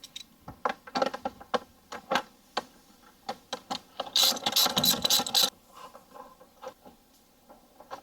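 Socket ratchet clicking in short strokes as it loosens a 10 mm clamp, with a denser run of rapid ratcheting for about a second and a half near the middle.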